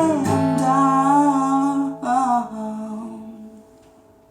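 Voice and acoustic guitar ending a song: a long, wavering sung note over a final strummed chord. The voice stops about two and a half seconds in, and the chord rings on and fades out.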